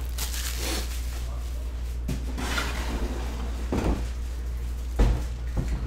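Handling at a tabletop: plastic shrink wrap rustling and about four soft knocks spread through, over a steady low hum.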